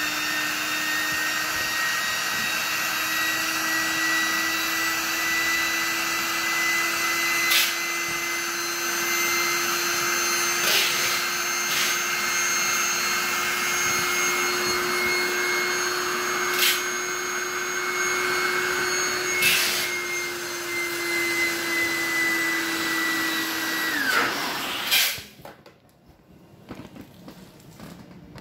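Handheld electric air pump running steadily as it blows air into an inflatable pool, a steady hum with a rush of air and a few knocks from handling. About 24 seconds in, the pump winds down and stops, leaving only faint handling sounds.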